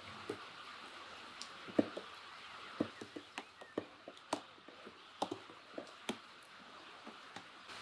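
A spoon stirring thick dogwood sauce in an enamel bucket, clicking and tapping irregularly against the pail's sides, over a faint steady hiss.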